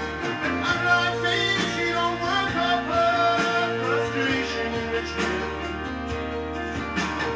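A vinyl LP playing on a Dual 1245 belt-drive turntable: music with guitar and a singing voice.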